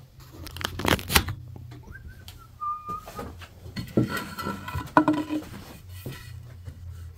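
Handling noise from the camera being picked up and moved close over the workbench, with knocks and rustling as the axe handle is taken in hand. A short whistle-like tone is heard about two seconds in, over a steady low hum.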